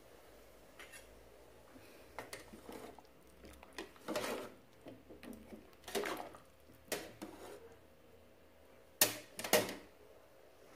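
A metal ladle clinking and scraping against the side of a metal cooking pot of broth as it is stirred, in irregular knocks, the two loudest and sharpest coming close together near the end.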